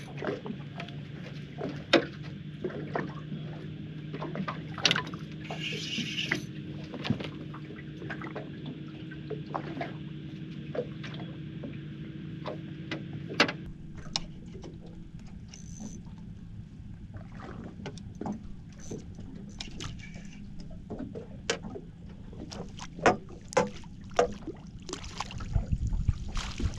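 Scattered sharp knocks, clicks and taps of fishing gear and a fish being handled on the deck of a small boat, with a steady low hum that stops about halfway through. Several louder knocks and a few low thumps come near the end.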